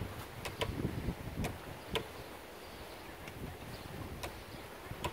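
Wheelchair rolling over brick paving: a low, uneven rumble with a few irregular sharp clicks and knocks, most of them in the first two seconds.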